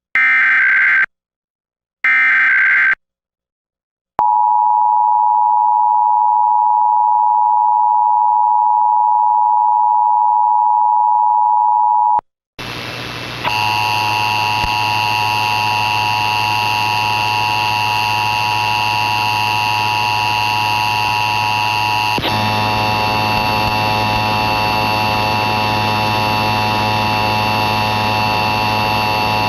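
An Emergency Alert System test from a DASDEC-II encoder: the last two bursts of the SAME data header, each a harsh digital screech about a second long, then an eight-second two-tone attention signal (853 and 960 Hz). After a short gap a steady, noisy buzz of several tones with a low hum runs on and shifts slightly about 22 seconds in.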